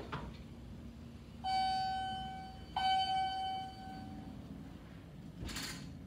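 Elevator hall lantern chime ringing two same-pitched dings about a second and a quarter apart, each fading away: the two-stroke chime of a car arriving to travel down. A short rushing noise follows near the end.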